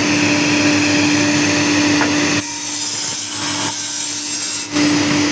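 Cutting machine running with a steady hum. For about two seconds in the middle the hum drops out and a harsher, hissing sound takes over, then the hum comes back.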